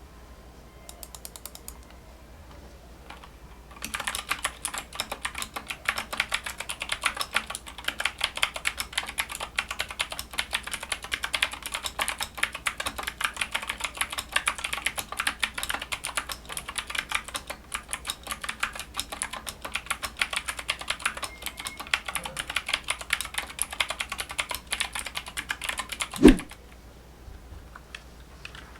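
Fast, continuous typing on a mechanical keyboard, many key clicks a second, starting after a few scattered keystrokes. It stops with one loud thump about three seconds before the end.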